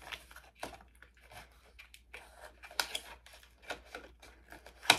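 Packaging rustling and crinkling as a box of liquid lipsticks is unwrapped and opened by hand: a run of small clicks and crackles, with one sharper click near the end.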